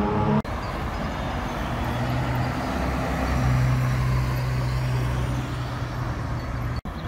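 Ferrari sports car driving by at low revs, its engine a steady low drone over general city traffic. The sound breaks off abruptly for a moment about half a second in and again near the end.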